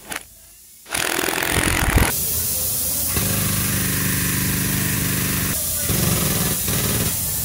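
Impact wrench hammering in bursts as it spins out bolts on a truck's rear suspension bracket, over a steady hiss from an air leak in the truck's air system.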